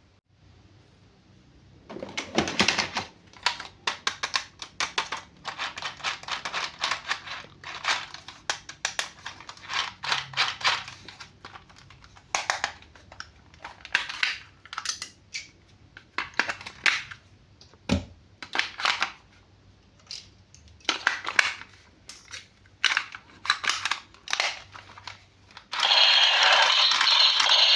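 Toy packaging and plastic toys being handled during an unboxing: irregular crinkles, clicks and rattles in quick, uneven runs. About two seconds before the end a loud, steady hissing noise comes in.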